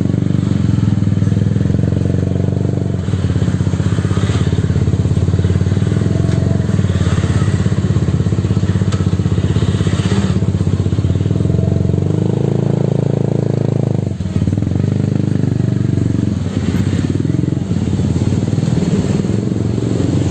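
A blue bajaj auto rickshaw's small engine idling and running close by with a steady rapid pulse, mixed with motorcycle engines around it.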